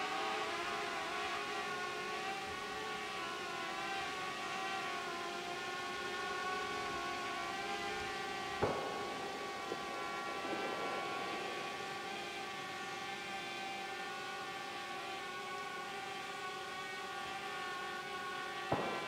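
Multirotor drone's propellers humming steadily: several whining tones that waver slightly in pitch. Two sharp clicks, about halfway through and near the end.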